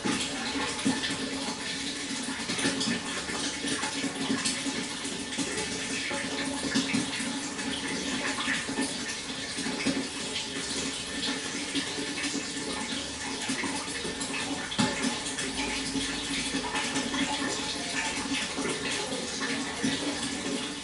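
Water flowing and splashing steadily, with no break.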